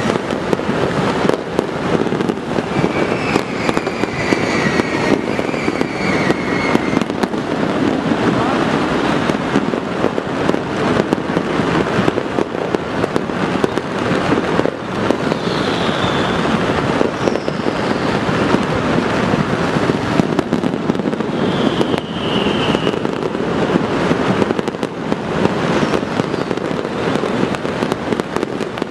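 Many fireworks going off at once across a city: a continuous, dense crackling and popping with frequent bangs, and a few brief high whistles.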